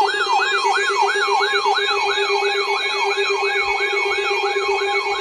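Electronic siren in a fast yelp, sweeping up and down about three times a second over steady alert tones: a weather-radio warning alert.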